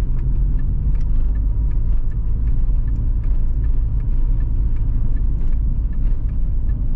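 Car driving slowly, a steady low engine and road rumble.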